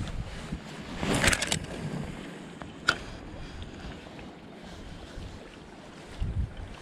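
Wind buffeting the microphone beside a river, with a short rush of noise about a second in and a single sharp click just before three seconds.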